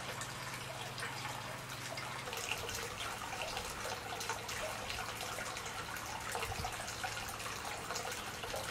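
Hot spring water running from an inlet pipe into a stone bath: a steady trickling splash with small drips.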